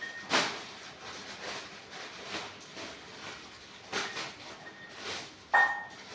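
Packaging being handled during an unboxing: a few short rustling scrapes, the loudest just before the end with a brief high squeak.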